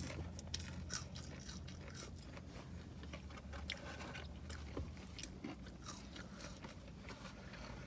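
Faint chewing and biting of fast food, with scattered small clicks and crunches over a low steady hum.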